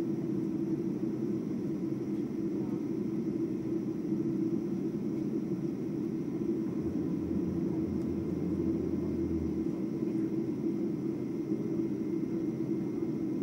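Steady low hum inside the cabin of a Boeing 747-8 on the ground, its GEnx engines at idle. A deeper rumble joins for a couple of seconds in the middle.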